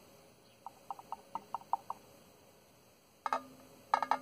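Light clicks and taps of plastic as a tube is worked inside a small clear plastic container: a quick string of faint ticks about a second in, then a sharp click and rapid, louder clicking near the end, with a low steady hum coming in at the same time.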